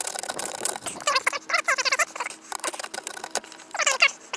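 Small saw blade of a Zippo SureFire multi-tool sawing back and forth through a thin stick of wood: fast rasping strokes, with squeaky chirps about a second and a half in and again near the end.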